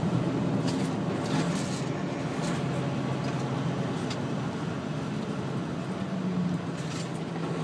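Semi truck heard from inside the cab while cruising at highway speed: a steady low engine drone with tyre and road noise, and a few faint rattles.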